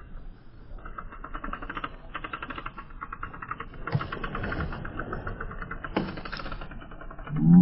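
Fishing reel clicking rapidly and evenly as line runs off it after a strike, with a couple of sharp knocks partway through. A short loud shout comes at the very end.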